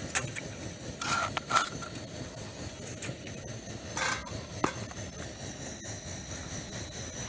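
Camp stove burning steadily under a pot of hot water, with a few short knocks and scrapes as a plastic cup scoops snow and drops it into the steel pot, clustered about a second in and again around four seconds in.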